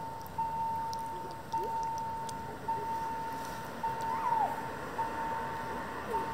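Railway level-crossing warning bell ringing with the barriers down, one stroke about every second, each ringing on and fading before the next. It signals that the crossing is closed for an approaching train.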